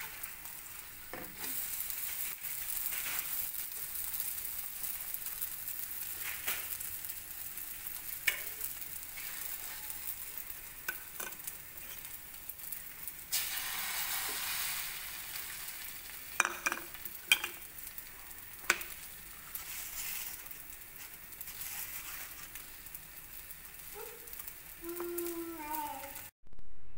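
Paratha and egg frying in oil on a flat griddle: a steady sizzle with scattered clicks of a utensil. The sizzle swells about halfway through as the egg goes onto the hot griddle, and a few short squeaky glides sound near the end.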